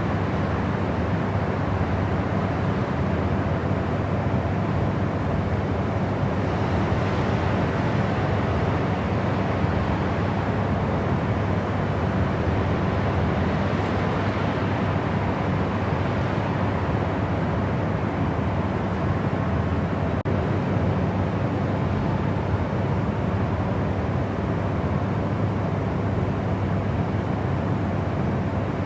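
Continuous white noise for sleep: a steady, even rushing hiss, fuller in the low and middle range than at the top. It has a momentary dip about twenty seconds in.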